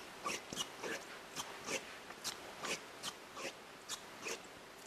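Oil-filled coil-over shock absorber from a 1/8-scale HSP monster truck, pumped by hand with its end pressed on a paper-covered table, giving short sharp clicks about two to three times a second as it is tested.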